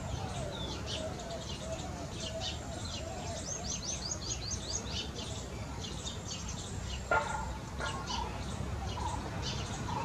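Birds chirping: repeated short high chirps, including a quick run of downward-sweeping chirps a few seconds in. About seven seconds in comes one louder, lower, harsher call. Low steady background noise runs underneath.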